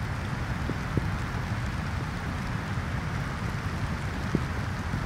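Steady light rain and wind, the wind a low rumble underneath, with a few single drops tapping now and then.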